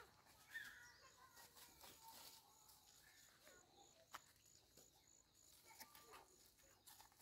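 Near silence: faint forest ambience, with a faint high chirping that repeats about three times a second and a few soft ticks.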